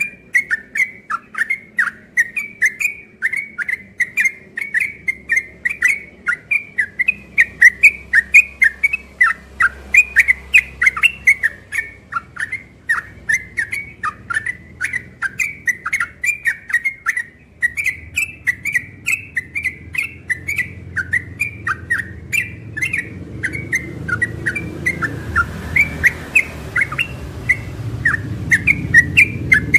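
Yellow-vented bulbul (trucukan) singing without a break: a fast run of short, sharp whistled notes, about four a second. A low rumble builds up behind the song in the second half.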